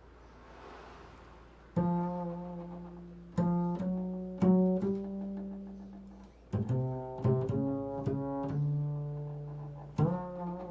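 Double bass plucked pizzicato in slow, improvised single notes, each struck sharply and left to ring and fade. The notes start about two seconds in, with about a dozen in all, some in quick pairs.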